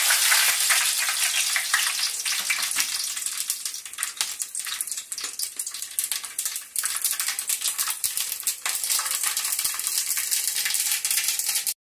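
Mustard seeds spluttering in hot oil: a dense sizzle full of fast crackling pops. It is loudest at first and slowly dies down, then breaks off suddenly near the end.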